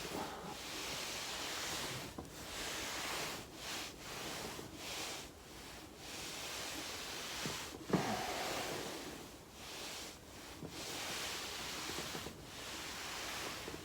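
Foam roller rolling under a body, a rustling, swishing noise that comes in repeated bouts of one to two seconds as the body moves back and forth. One short, louder knock about eight seconds in.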